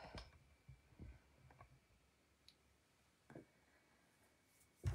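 Near silence with a few faint, scattered clicks and light knocks, and a louder thump near the end.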